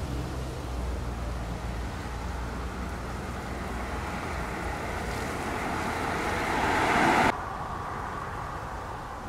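A Suzuki SUV coming up the road, its tyre and engine noise growing louder over several seconds. The sound cuts off abruptly about seven seconds in, leaving a quieter steady background.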